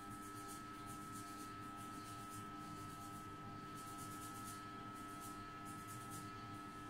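Faint quick rubbing rustles of fingertips massaging hair tonic into the scalp through damp curly hair, coming in short spells, over a steady electrical hum.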